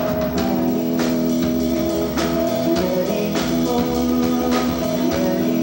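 Live rock band playing: sustained electric guitar, a drum kit with regular cymbal and drum hits, and a singer's vocal.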